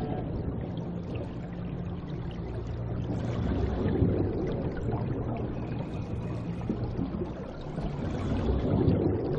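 Water rushing and trickling as a steady, even wash, with a faint low steady hum underneath.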